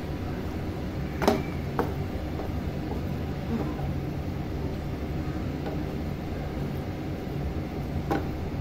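Wooden spatula stirring boiled eggs through thick onion-tomato masala in a nonstick frying pan, with a few sharp knocks of the spatula against the pan about a second in and near the end, over a steady low kitchen rumble.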